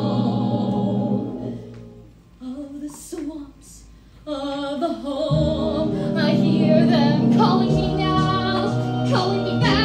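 A woman singing a musical-theatre song with instrumental accompaniment. A held note fades out about a second in, the sound drops low for a couple of seconds, then her singing resumes and the accompaniment comes back in fuller about five seconds in.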